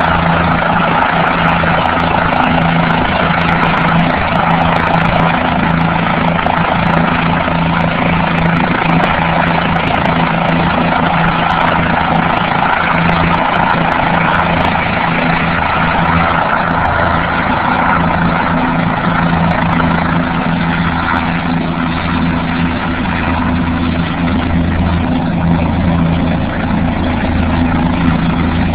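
Helicopter running loud and steady: turbine and rotor noise, with a held low hum of several tones under an even rushing sound.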